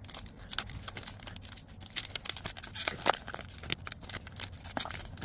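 A foil trading card pack (Select AFL Footy Stars 2024) being torn open by hand: the wrapper crinkles and tears in a run of small crackles, sharpest about two and three seconds in.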